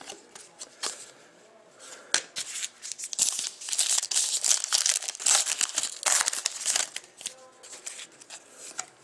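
Foil wrapper of a Panini Titanium hockey card pack being torn open and crinkled by hand. A dense run of crackling starts about two seconds in and dies down about seven seconds in.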